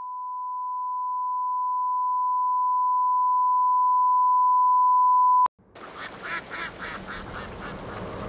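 A single pure high electronic tone, like a test tone or ear ringing, swelling steadily louder for about five and a half seconds, then cut off abruptly with a click. A noisy rushing sound with a fast pulsing of about five beats a second follows at once.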